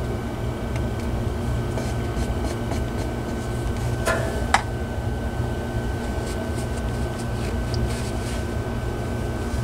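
Light clicks and rattles of small metal fan-motor parts being handled and fitted, with one sharper click about four and a half seconds in, over a steady low background hum.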